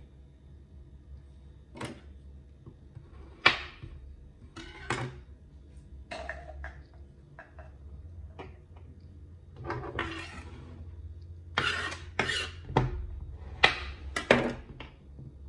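Hands handling kinetic sand and setting small blocks down on a hard tabletop: irregular taps, clicks and short scrapes, busiest near the end, over a faint steady hum.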